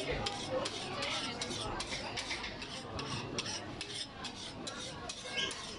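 Metal spatula scraping and tapping on a jianbing griddle: a quick, irregular run of scrapes and clicks, about four or five a second.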